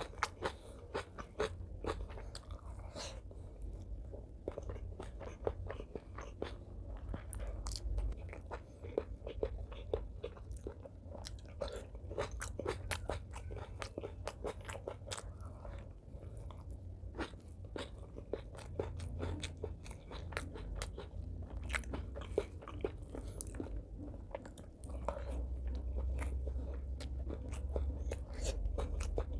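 Close-miked chewing and biting: a person eating rice, braised pork belly and leafy greens by hand, with many quick wet mouth clicks.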